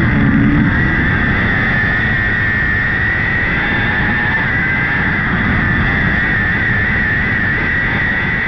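Micro sprint car's motorcycle engine running hard at high revs around the dirt track, heard from onboard the car. It is a steady high-pitched engine note that wavers slightly in pitch as the throttle is worked through the corners.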